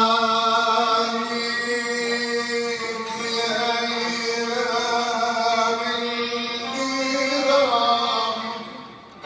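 A man singing in Arabic classical style, holding one long note for several seconds, then turning it through a quick ornamented run before it fades away near the end.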